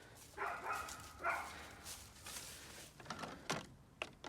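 A dog making two short, faint vocal sounds, followed by a few light knocks near the end.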